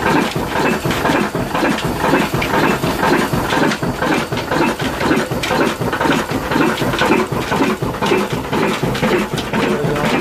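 Old horizontal stationary diesel engine with a heavy flywheel running steadily, a loud even rhythmic chugging.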